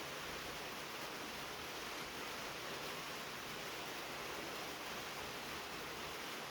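Soft rain falling on a tin roof, heard as a steady, even hiss.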